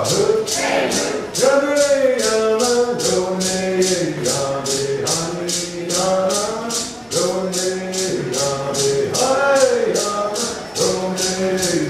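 Cherokee social-dance song: a voice chanting over a rattle shaken in a steady beat of about three strokes a second.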